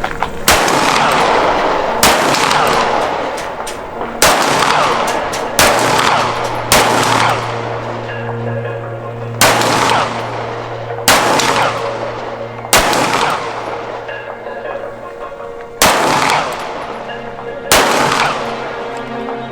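About ten single shots from a DHP9G 9 mm pistol, fired one at a time a second and a half to three seconds apart, each with a ringing echo. Background music plays underneath.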